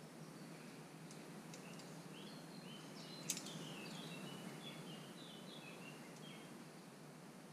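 Outdoor background noise with a small bird chirping a run of short high notes through the middle. A single sharp click about three seconds in.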